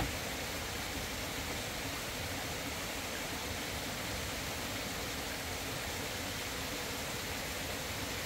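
Steady rushing of a fast river's water, an even noise that does not change, with one sharp click right at the start.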